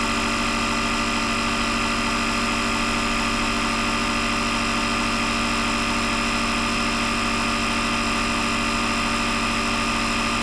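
Built-in air compressor of a CAT CJ1000DXT jump-starter power station running with a steady drone as it inflates a car tire toward a set 30 psi, the pressure coming up fast.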